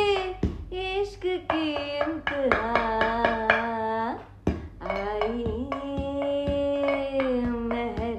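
A woman and a man singing a Hindi film duet in long held notes, the two voices together in the second half, while he taps a rhythm on the back of a frying pan with a metal utensil.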